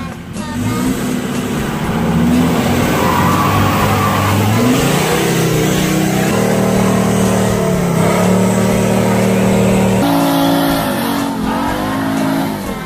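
Diesel engine of a 4x4 revving hard under load as it climbs a muddy, rutted slope, its pitch rising and stepping up and down several times as the throttle changes.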